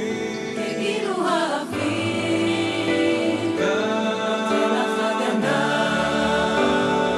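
Mixed choir of men's and women's voices singing a Hebrew song in harmony, with a low part coming in about two-thirds of the way through.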